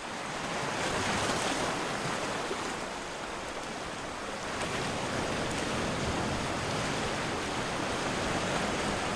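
Sea water sloshing and lapping at the surface around a swimming snorkeler: a steady rushing wash that swells a little and eases again.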